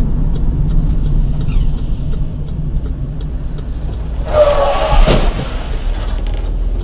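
Steady engine and road rumble of a moving car. A short, loud pitched blare comes about four and a half seconds in, followed at once by a sharp knock.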